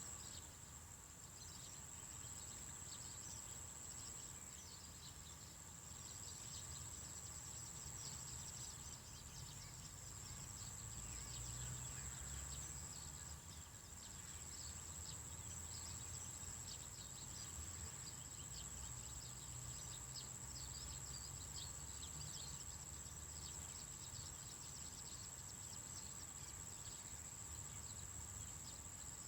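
Faint nature ambience: a steady high-pitched insect drone with many short, quick high chirps, over a low rumble.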